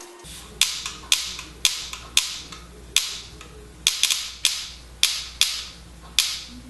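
Invert Mini electronic paintball marker cycling as its newly installed spring-return trigger is pulled over and over: about a dozen sharp shots, roughly one every half second, each trailing a short hiss.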